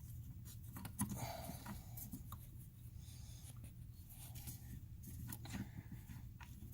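Faint scraping and a few small clicks as a brake light switch is handled and threaded into its bracket under a car's dashboard, over a low steady hum.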